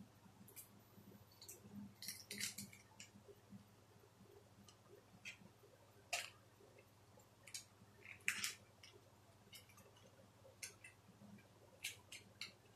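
Faint, irregular clicks and crinkles of a cardboard cigarette pack and its wrapping being handled and opened by hand.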